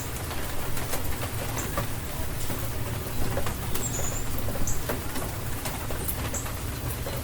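Steady spring rain with close drops tapping, while a bird gives short high chirps about once every second or two.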